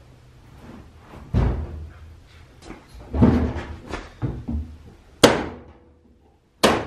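Heavy thuds and clunks from a Husky 52-inch steel tool cabinet being pushed and shifted on its casters over a concrete floor. Sharp metallic bangs come about five seconds in and again near the end; the first is the loudest sound.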